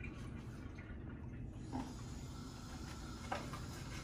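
Quiet room tone with a steady low hum, and a couple of soft taps about two and three seconds in from a stir stick stirring a cappuccino in a ceramic cup.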